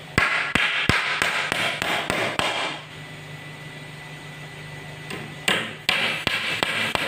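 Hammer driving nails into the wooden slats of a pallet crate: a quick run of sharp strikes about three a second, a pause of a couple of seconds, then another run of strikes near the end.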